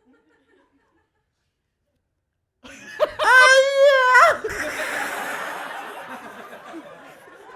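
A man's voice making a wavering, warbling vocal sound effect for about a second, followed by an audience laughing, the laughter slowly dying down.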